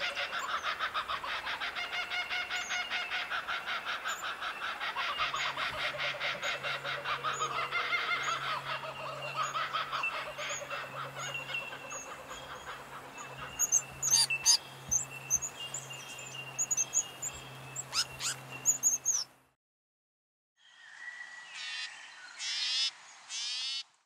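Outdoor animal chorus: a dense, rapidly pulsing chorus with birds chirping over it, a low steady hum joining about a fifth of the way in, and a few sharp clicks past the middle. It cuts off abruptly, and after a second of silence a short passage of bird calls follows.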